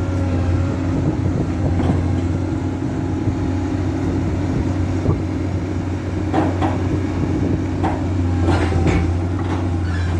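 Komatsu PC200 excavator's diesel engine running steadily. A few brief sharp sounds break over it in the second half.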